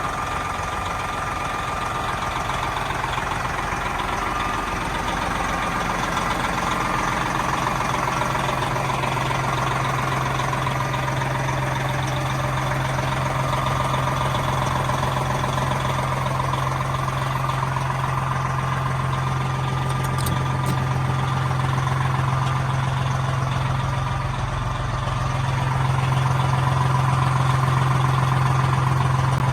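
Diesel engine of a vintage Peterbilt 378 truck running steadily with a low drone, growing a little louder near the end.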